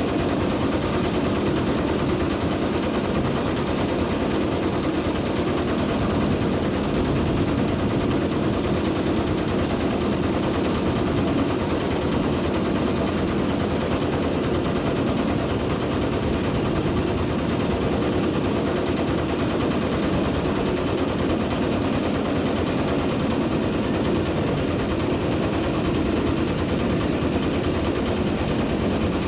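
Diesel engine running steadily with a fast, even chugging rhythm.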